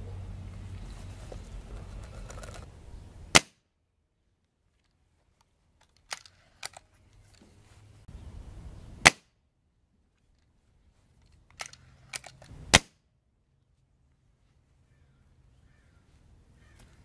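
Three shots from a Hatsan 135 .30-calibre break-barrel air rifle, each a single sharp crack: about three seconds in, about six seconds later, and about four seconds after that. A few fainter clicks come between the shots.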